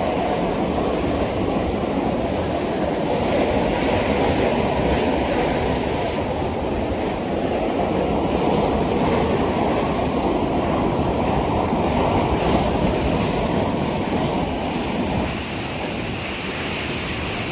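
Loud, steady rush of floodwater in a swollen stream. The sound shifts about fifteen seconds in, when a high hiss drops away.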